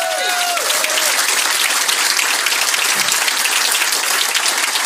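Audience applauding: steady, dense clapping, with a brief voice heard over it at the very start.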